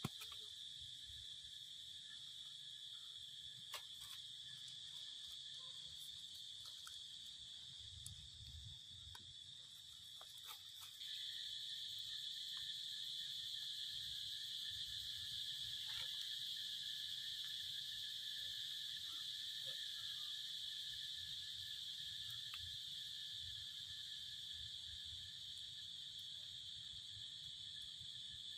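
A steady, high-pitched insect chorus as one unbroken drone, growing louder about eleven seconds in. A few faint clicks sound over it.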